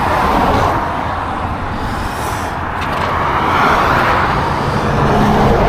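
Road traffic going by: a steady rumble and rush of tyre and engine noise that swells twice as vehicles pass.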